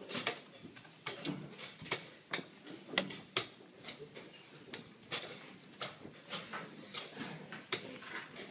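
Quick, irregular clicks and knocks, about two a second, of chess pieces set down on the board and chess-clock buttons pressed during a fast blitz game.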